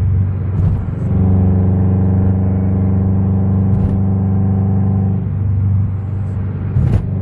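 Subaru BRZ's flat-four engine running under load, heard from inside the cabin as a loud, steady drone that changes note about five seconds in.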